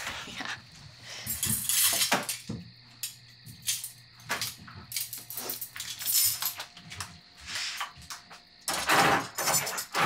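Kitchen items handled at a counter: scattered short knocks, clinks and scrapes over a low steady hum that stops about two-thirds of the way through.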